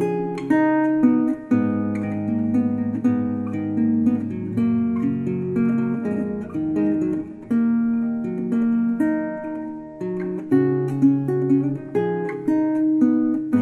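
Background music: an acoustic guitar playing chords, with a new chord struck about every second.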